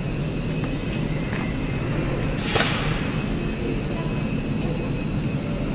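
Industrial factory ambience: a steady low machinery rumble with a faint murmur of voices. A short hiss rises out of it about two and a half seconds in.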